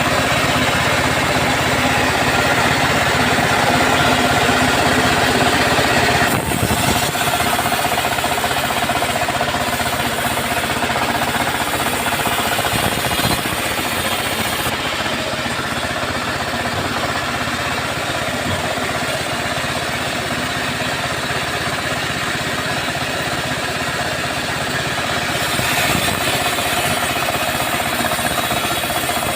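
Two-stroke chainsaw running steadily at high revs while sawing teak wood, with a brief dip about six seconds in.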